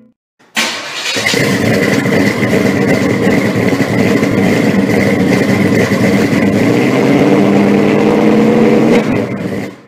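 A loud engine running hard, with a thin high whine held steady on top. It starts abruptly about half a second in, its pitch climbs a little past halfway, and it cuts off just before the end.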